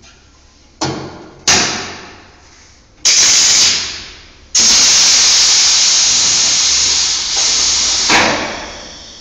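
Compressed air hissing from the tape machine's pneumatic fittings in sudden blasts: two short ones, a louder one, then a long steady blast of several seconds that ends with a sharp burst.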